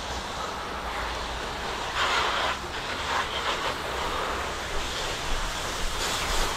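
Water jet from a pressure-washer wand spraying onto vinyl siding: a steady hiss and splatter of water, louder for a moment about two seconds in and again near the end, over the low steady hum of the pressure washer's engine running.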